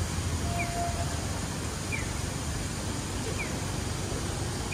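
Audible pedestrian crossing signal sounding short falling chirps at a steady pace, about one every second and a half, over steady street noise with a low traffic rumble. A brief steady tone sounds about half a second in.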